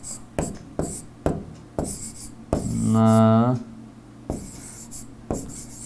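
Stylus writing by hand on a tablet screen: a run of sharp taps roughly twice a second, with short scratchy strokes between them.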